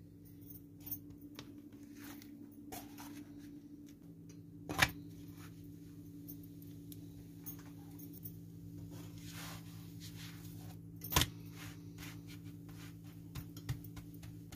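Spatula handling a tortilla in a nonstick frying pan: light scattered taps and scrapes, with two sharp knocks about five seconds in and again about eleven seconds in, over a steady low hum.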